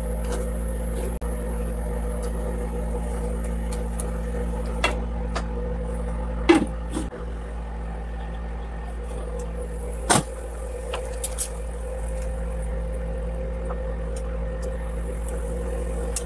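Steady electrical hum of an induction cooktop running under the pan. A couple of sharp clanks of a lid or utensil against the pan stand out over it, the loudest about six and a half seconds in and another about ten seconds in.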